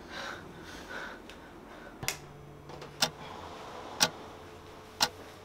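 Clock ticking: four sharp single ticks, one each second, starting about two seconds in.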